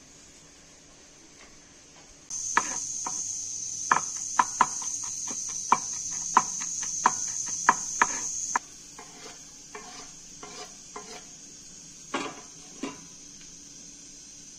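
Kitchen knife chopping garlic on a wooden cutting board: about a dozen sharp, irregular knocks over some six seconds, starting about two seconds in, with a steady high insect chirr behind them. Softer taps and a couple of louder knocks follow as ingredients are handled.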